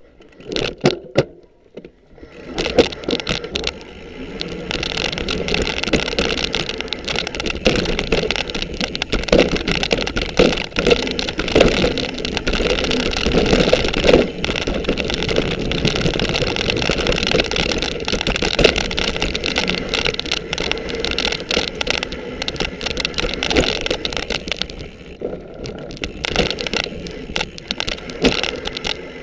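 Mountain bike riding down a dirt forest trail, heard from a camera mounted on the bike: a steady rush of tyre-on-dirt noise with constant rattling and knocks as the bike goes over roots and bumps. It starts in earnest about two and a half seconds in and eases off near the end.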